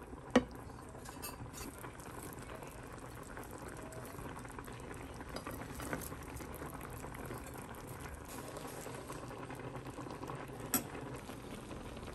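Creamy sauce with meatballs simmering and bubbling in a frying pan, stirred now and then. A sharp knock of the utensil against the pan about half a second in and another near the end.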